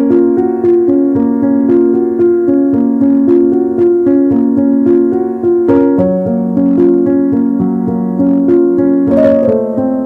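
Background piano music, a steady run of held notes.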